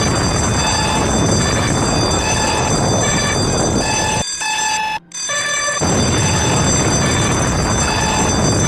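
Mock Emergency Alert System alarm: a loud, harsh rushing static with steady high-pitched tones and a beeping tone that comes and goes. The noise breaks off for about a second and a half a little past four seconds in, with a moment of silence, then resumes.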